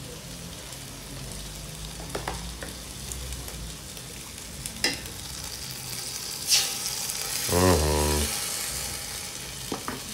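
A pot of makande (beans and maize with curry, coconut milk just poured in) sizzling steadily on the heat, with a few sharp clicks against the pot. A brief low hum about three-quarters of the way through is the loudest sound.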